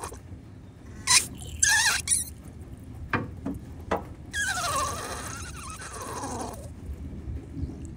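Cooling-system pressure tester's hand pump being worked on the coolant reservoir to pressurize the system and find a leak in a rusted coolant pipe: a few squeaky strokes and clicks, then, about halfway through, a hiss with a squeal that falls in pitch over about two seconds.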